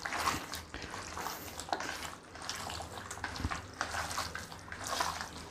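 Irregular wet squishing of a bare hand mixing raw mutton pieces into yogurt and spice powders in a plate, working in a marinade.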